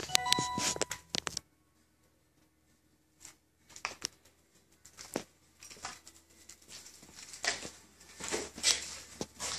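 Rustling and scraping of someone moving over loose debris: a burst of clattering handling noise with a brief squeaky ring at the start, then scattered scrapes that thicken into steady shuffling in the last few seconds.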